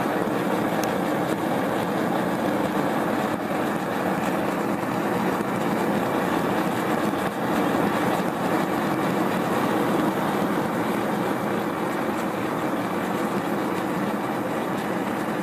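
Homemade propane forge burner (a 3/4 inch pipe flaring out, fed by a jet in a 1/4 inch tube) running steadily, a constant rushing noise of gas and flame firing into the forge. The forge is heating up fast.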